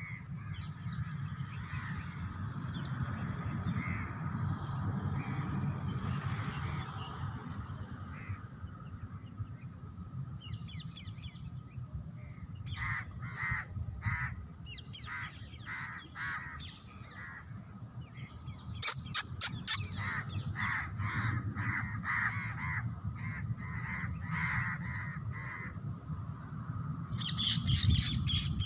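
Parrots calling, with many short repeated calls coming in quick runs through the second half and three loud, shrill calls about two-thirds of the way through, over a steady low background rumble.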